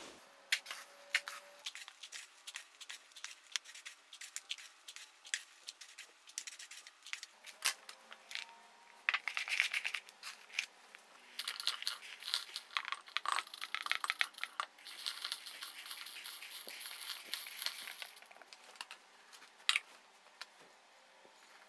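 Dry baked oat granola and toppings being handled in a metal baking tray: scattered crisp clicks and crunches as pieces are scooped and dropped in. From about halfway through comes a longer stretch of dense rattling and rustling as dry pieces are poured and stirred over the granola.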